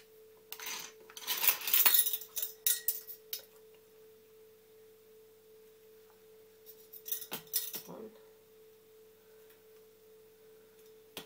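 A spice packet rustling and a teaspoon scraping and tapping against a bowl as spice is spooned in. This comes in bursts over the first few seconds and again about seven seconds in, over a faint steady hum.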